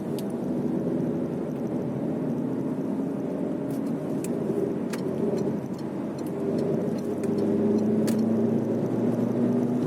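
A car driving, heard from inside the cabin: a steady engine hum and road noise, with a few faint clicks scattered through.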